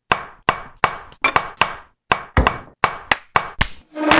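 A rapid series of sharp, hard knocks, about three a second and slightly uneven, each ringing briefly.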